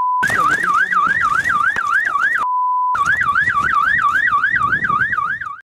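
An electronic siren cycling in a fast rising yelp, about four sweeps a second, broken twice by a steady censor bleep, briefly at the very start and for about half a second around the middle. The sound cuts off abruptly near the end.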